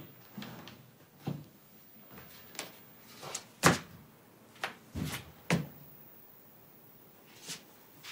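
A run of about ten separate soft knocks and thumps, spaced unevenly, the loudest about three and a half seconds in: a person climbing a ladder and moving about on a wooden floor and step.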